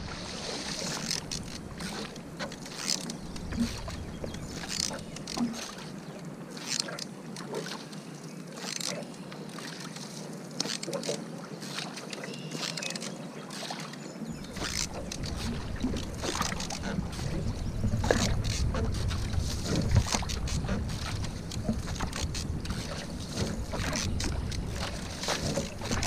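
Single-blade paddle strokes in the water beside a canoe: irregular splashes and drips, with water moving along the hull. A low rumble of wind on the microphone joins in about halfway through.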